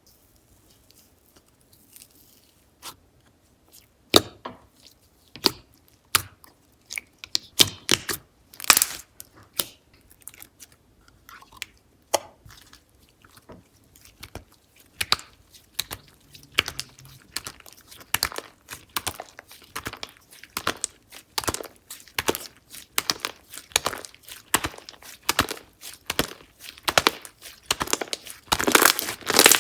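Slime being squeezed and stretched by hand, giving sharp crackling clicks and pops. They start about four seconds in and grow denser and louder toward the end.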